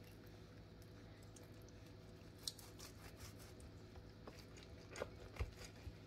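Faint sounds of a knife slicing horizontally through a raw chicken breast on a plastic cutting board: a few soft clicks and scrapes over a low steady hum.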